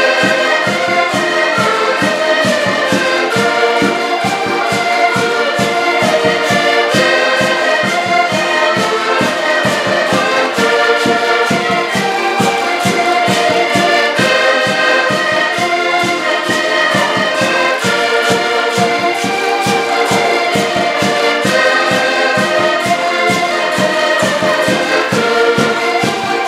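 Several accordions playing a lively traditional Portuguese dance tune together, with a steady beat and held chords throughout.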